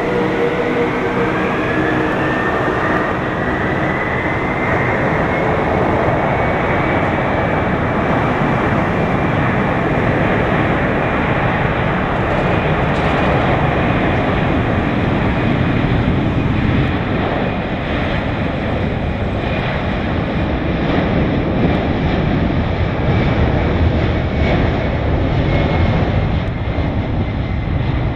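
Boeing 767-300ER's twin turbofan engines spooling up to takeoff thrust: a whine rises in pitch over the first few seconds, then holds steady over a loud, continuous roar as the jet accelerates down the runway on its takeoff roll.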